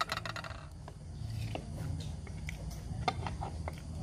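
Scattered light clicks, taps and scrapes of a spoon and melamine plates during a meal, over a low steady hum.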